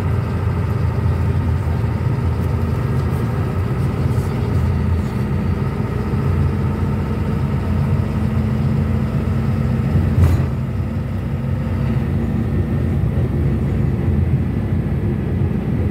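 Cabin noise inside a GAZelle minibus at road speed: steady engine drone and tyre rumble, with a single brief knock about ten seconds in.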